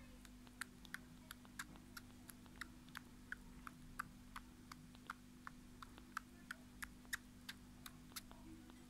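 Very young kitten suckling on a human finger: quiet wet clicks of its mouth, about three a second, in a steady rhythm.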